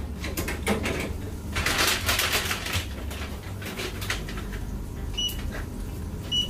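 Paper takeaway bag rustling and crinkling as it is handled, with light clicks and knocks. Near the end, two short high electronic beeps.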